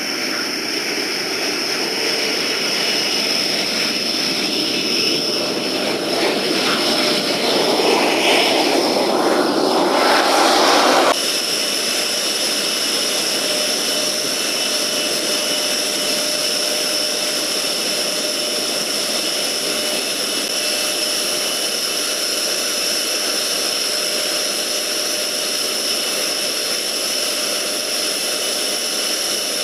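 Tornado GR4 twin RB199 jet engines running on the ground, a loud steady turbine whine with high tones over a rushing noise. The rush swells louder for a few seconds, then about eleven seconds in the sound switches abruptly to a steadier whine.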